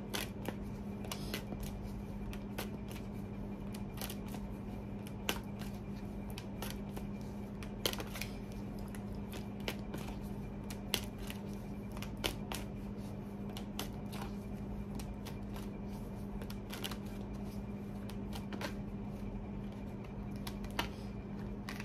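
A deck of tarot cards being shuffled by hand, a run of irregular short clicks and snaps as the cards slide and strike one another, over a steady background hum.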